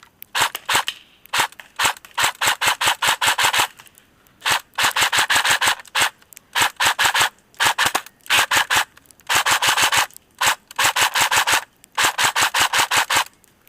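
Echo1 Red Star AK electric airsoft rifle firing on full auto: about eight bursts of rapid shots, each lasting half a second to two seconds, with short pauses between, after a few single shots at the start.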